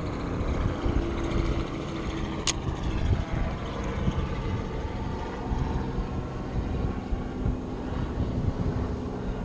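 Wind buffeting the microphone, an uneven low rumble, with a single sharp click about two and a half seconds in.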